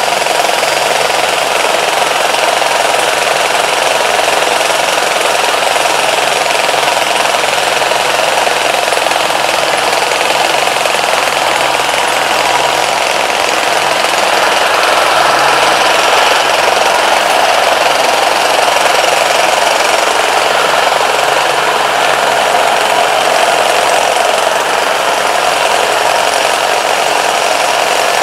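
A vehicle engine running steadily and loudly under way, with a rough, rattly tone.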